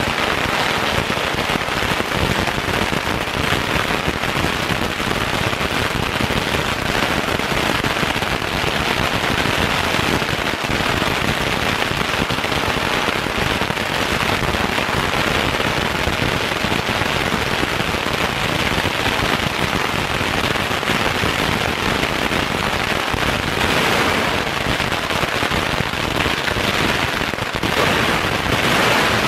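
A long string of firecrackers going off in a continuous rapid crackle.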